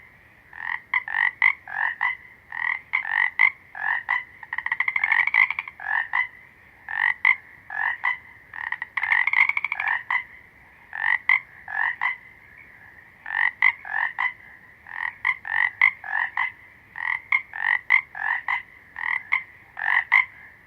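Frogs calling: short, loud croaks repeated in quick clusters, with a longer rapid rattling trill about four seconds in and again around nine seconds. A steady high drone of more frogs runs beneath.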